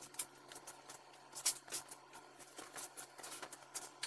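Irregular footsteps with scattered small clicks and knocks, the loudest about one and a half seconds in, over a faint steady hum.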